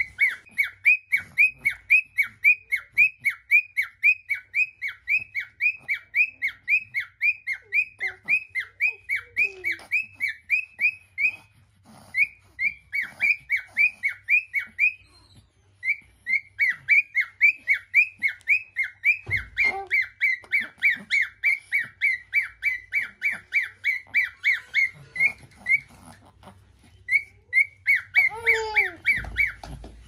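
White cockatiel calling in a fast, rhythmic series of short, high, down-sweeping notes, about three a second, broken by a few brief pauses.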